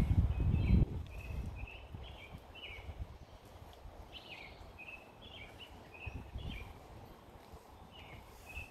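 A small bird chirping over and over in short, high calls. A low rumble on the microphone stops about a second in.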